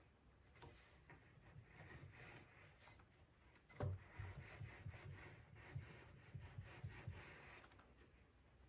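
Faint scraping and rubbing of a hand tool on wood while trimming iron-on maple veneer edge banding, with light clicks and a small knock about four seconds in.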